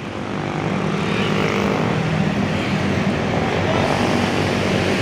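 Tour bus engine running as the bus drives by, a steady drone with a low hum in the first couple of seconds.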